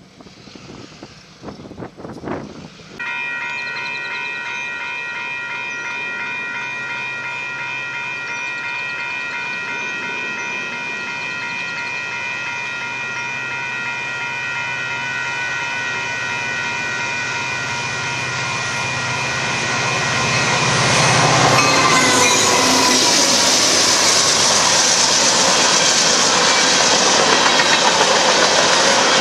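Union Pacific freight train's locomotive horn sounding one long, unbroken blast, a chord of several notes over a low engine hum, starting suddenly about three seconds in. Near twenty-two seconds the horn stops and a louder rushing clatter of hopper cars rolling past on the rails takes over.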